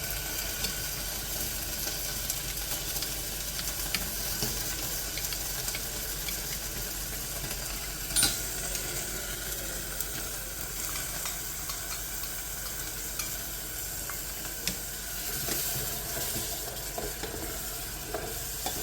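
Onion, garlic and tomato-puree masala sizzling in oil in an electric kettle while a spoon stirs and scrapes it. There is a sharp knock about eight seconds in.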